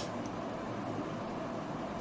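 Steady background hiss with no distinct sound standing out.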